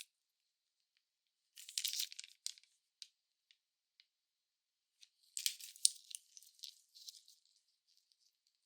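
Crinkly wrapper being unwrapped from a surprise egg or candy: two bursts of crackling and tearing, one about a second and a half in and a longer one about five seconds in, with a few light clicks between.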